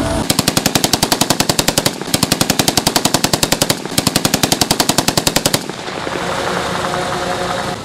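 Kalashnikov-type rifle firing on full automatic: three long bursts of about ten shots a second, each a second and a half to two seconds long with short breaks between, then a lull for the last two seconds or so.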